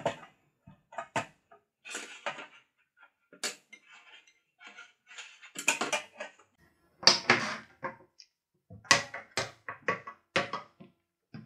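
Welding leads, electrode holder and ground clamp being handled and set down on a steel workbench: irregular knocks, clatters and cable rustles, with a connector pushed into a socket on the welder's front near the end.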